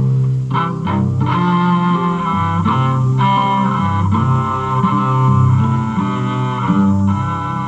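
Live instrumental music on string instruments: held low notes that change about once a second, under a plucked string part.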